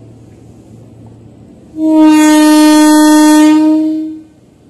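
Train horn of a KRL Commuter Line electric train: one loud, steady blast of about two and a half seconds, starting about two seconds in and tailing off.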